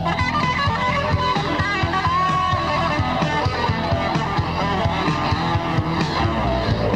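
Instrumental rock: an electric guitar melody over bass and a steady drum beat, with a bent note about two seconds in. A home four-track tape recording with long analog echo on the guitar.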